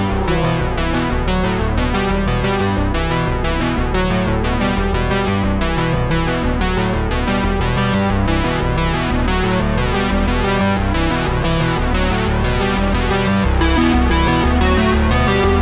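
Background music with a steady beat, led by synthesizer and keyboard.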